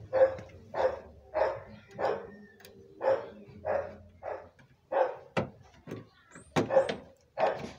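A dog barking over and over in a steady rhythm, about one and a half barks a second. Two sharp clicks stand out, at about five and a half and six and a half seconds in.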